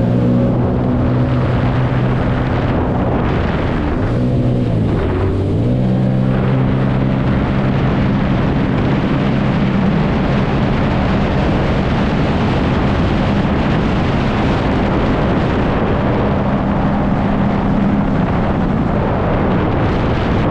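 Jet ski engine running under way, its pitch dipping about four seconds in and climbing back a couple of seconds later as the throttle changes, over a loud steady rushing noise.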